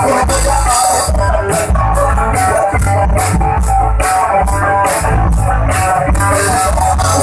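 Band playing an instrumental rock passage, with guitar, bass and a drum kit keeping a steady beat of cymbal strokes.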